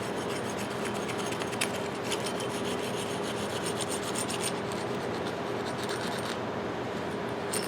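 Brass wire brush scrubbing rust and dirt from the inside of a 10-inch Ridgid pipe wrench, a steady continuous scrub of quick back-and-forth strokes.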